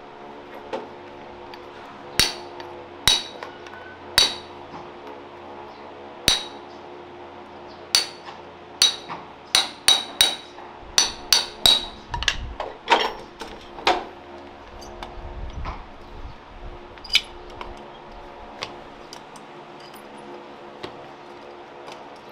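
Farrier's hammer striking metal shoeing tools or a horseshoe in sharp, ringing taps. A few come a second or two apart, then a quicker run of strikes in the middle, and one last tap near the end. A steady low hum sits underneath.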